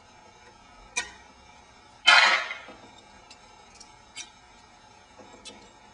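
Small metal clicks and ticks as needle-nose pliers pick the rollers out of a Puch ZA50 transmission's one-way roller bearing. There is a sharp click about a second in and one louder ringing metal clink about two seconds in.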